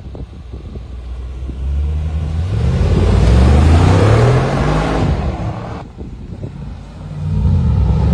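2020 Mercedes-AMG G63's twin-turbo V8 revved twice: the pitch rises about two seconds in, holds loud, drops off near six seconds, then climbs again near the end. Brief ticks and pops are heard in the quieter stretches between revs.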